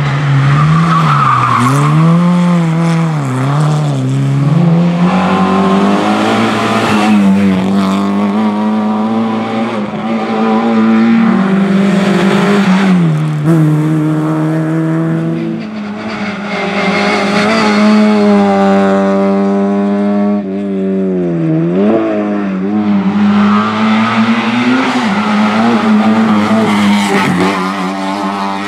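Rally cars driven hard one after another, engines revving up and dropping back repeatedly through gear changes and corners.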